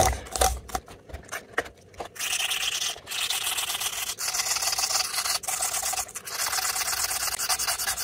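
A small piece of sandpaper rubbed by hand over the corroded, pitted magnets inside an e-bike hub motor's rotor, cleaning the corrosion off them. There are short, broken strokes at first, then from about two seconds in a fast, steady scratchy rubbing with a few brief pauses.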